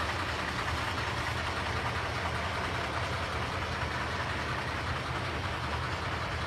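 Steady mechanical running noise with a low rumble, engine-like and unchanging.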